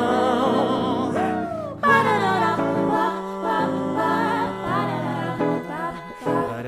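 Music: voices singing held, gliding notes without clear words over a steady low accompaniment.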